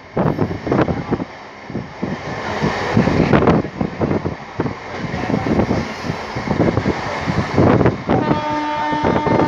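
Passenger train coach running at speed: wheels clattering and knocking on the rails with rushing air noise. A little over eight seconds in, a steady train horn starts and holds.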